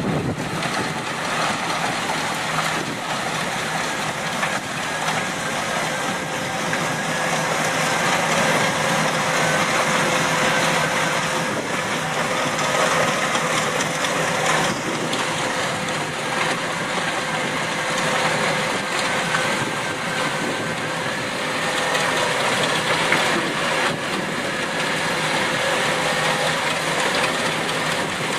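Heavy earthmoving machine's engine running steadily, with a constant whine over it.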